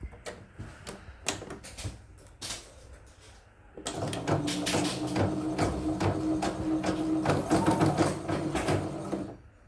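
Small clicks as a bobbin is fitted at the needle plate of a YOKO portable embroidery machine. About four seconds in, the machine starts stitching, a rapid needle clatter over a steady motor hum, and stops shortly before the end: a test run of the bobbin sensor fault that keeps throwing it back into sewing mode.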